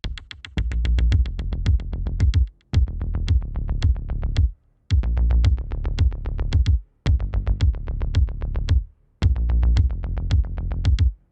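Electronic background music: a fast, even drum-machine beat over heavy bass, in phrases of about two seconds separated by brief breaks.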